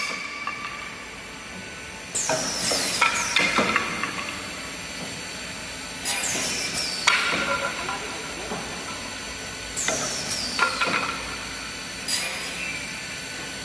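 Optimizing cross-cut saw cutting wooden boards: four bursts of cutting about every three to four seconds. Each has a high blade whine that drops in pitch and a few sharp knocks, over a steady machine hiss.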